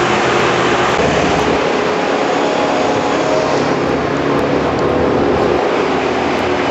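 Loud, steady running of a heavy engine, such as the machinery used in tree removal, with no breaks or changes.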